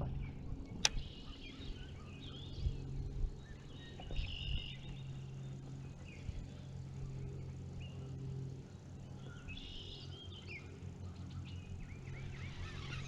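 Birds calling: a few short clusters of high chirping calls, about four seconds in and again near ten seconds, over a steady low hum. There is a single sharp click just under a second in.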